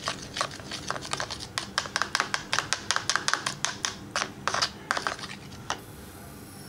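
Metal spoon stirring instant coffee powder into a little milk in a plastic bowl, clicking against the bowl's sides several times a second. The clicking stops near the end.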